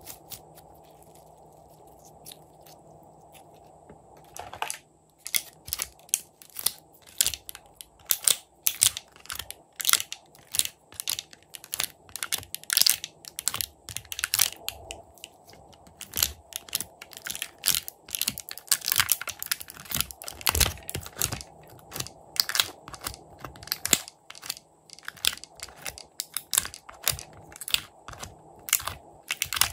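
Thin clear plastic tray crackling and clicking as pink clay sticks are pressed and pulled out of it. The sharp, crisp clicks come in a dense, irregular run that starts a few seconds in.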